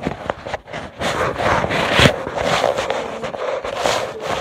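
Handling noise on a phone's microphone: fingers rubbing and scraping over it in uneven bursts, with a sharp knock about two seconds in.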